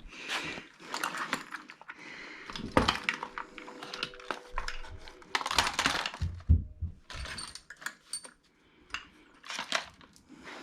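Small metal hardware clinking and clattering as loose sockets and nuts are rummaged through, with a brief ringing of struck metal about four seconds in.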